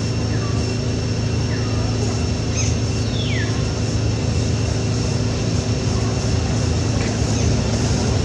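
Steady mechanical hum of a running machine, with a few short falling chirps over it, the clearest about three seconds in.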